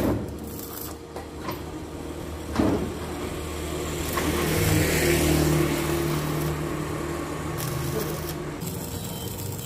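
Stick arc welder striking and burning a weld on steel chain links: a steady hum with a sizzling crackle from about four and a half seconds in, cutting off near the end. A sharp click is heard at the start and another about two and a half seconds in.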